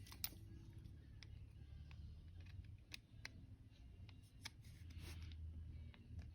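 Faint, scattered light clicks and taps from small metal tool and vise parts being handled during assembly, with a brief soft rub about five seconds in, over a low steady room hum.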